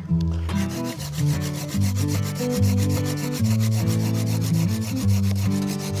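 A dead branch being sawn in two by hand: a steady, fast rasping of the saw through the wood. Background music with low held notes plays underneath.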